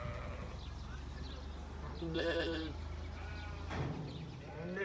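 A sheep bleating once, a single wavering call about two seconds in.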